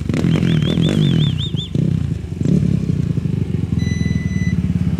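Off-road race vehicle's engine running close by with a rapid, steady firing pulse. A warbling whistle sounds over it in the first two seconds, and a short electronic beep comes near four seconds in.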